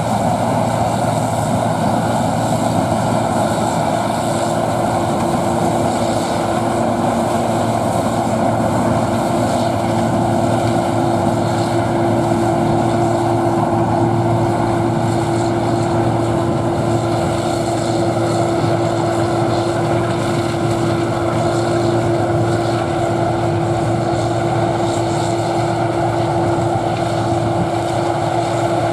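Gleaner combine harvester running steadily under load while harvesting corn: an engine hum mixed with the noise of the threshing machinery. A steady whine comes up stronger about halfway through and holds.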